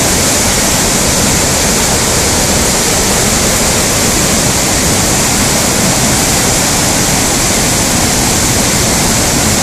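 Waterfall in flood after a day of heavy rain, with brown floodwater pouring over a rock ledge and churning below. It makes a loud, steady rush of water that does not change.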